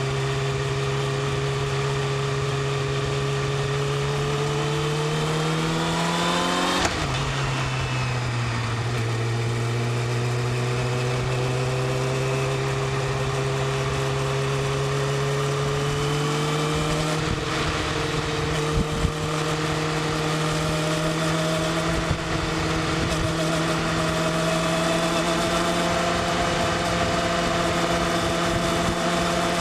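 Yamaha YZF-R6's inline-four engine with its stock exhaust, under way. The engine note climbs slowly, drops sharply about seven seconds in at a gear change, then climbs slowly again through the rest of the run.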